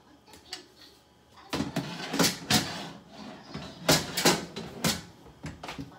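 Metal clattering and knocks as a wire rack and tray are handled in and out of a Sharp Healsio countertop steam oven and its door is worked. There is a burst of rattling about two seconds in, then several separate knocks near the end.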